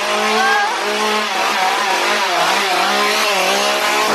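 Two-stroke chainsaw engine running loud, its pitch wavering up and down as it is revved.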